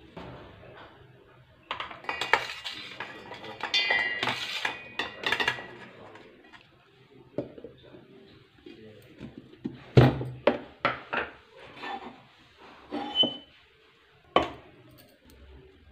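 Stainless-steel kitchenware clattering and clinking with a ringing metal tone as roasted vegetables and cashews are scraped off a steel plate into a steel mixer-grinder jar. This is followed by a string of separate knocks and clicks as the jar and its plastic lid are handled.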